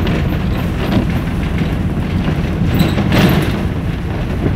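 Steady low rumble of a moving vehicle heard from inside the cabin: engine and road noise, with a couple of short knocks or rattles about a second in and about three seconds in.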